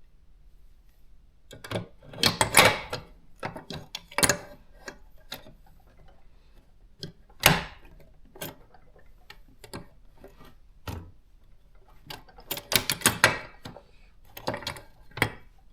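Irregular metallic clicks and knocks from a Consul 1511 portable typewriter being handled as its cover panel is fitted back onto the hooks on the body. The clicks come in scattered clusters, the loudest about two and a half seconds in, at seven and a half seconds and around thirteen seconds.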